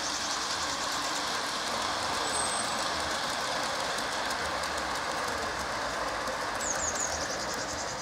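Gauge 1 model coal wagons rolling steadily along garden-railway track and over a girder bridge: an even rumble of small metal wheels on the rails, with faint clicks.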